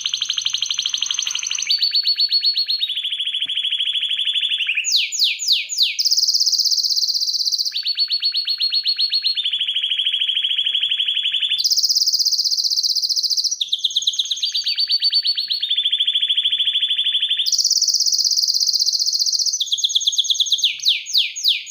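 Excited canary in full song: a continuous run of rapid trills and rolls, each held for a second or two before jumping to a new pitch. Several bursts of fast falling sweeps are mixed in.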